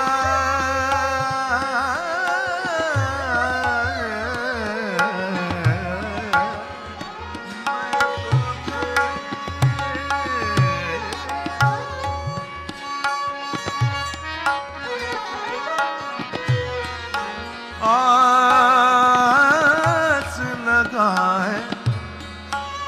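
Male Hindustani classical vocalist singing an ornamented melody with fast wavering runs, accompanied by tabla and a tanpura drone. The voice drops back for a stretch with the tabla strokes standing out, then returns strongly about three-quarters of the way in.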